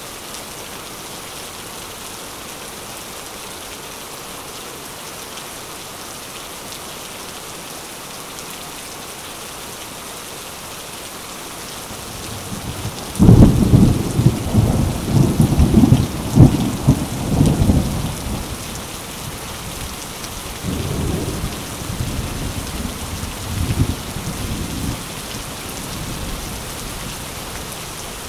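Steady rain falling. About halfway through, a loud roll of thunder rumbles for several seconds, and quieter rolls follow a few seconds later.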